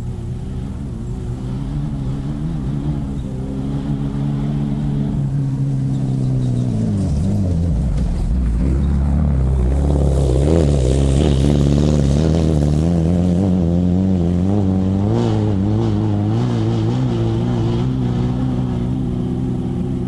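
Off-road racing buggy engine running hard. Its pitch holds steady, drops about seven seconds in, then rises and falls quickly as the revs change, loudest around the middle.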